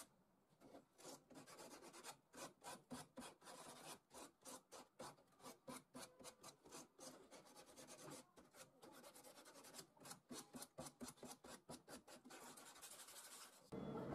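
Hand sanding the edge of a wooden folding-saw handle with a flat abrasive block: quick back-and-forth scratchy strokes, about three a second.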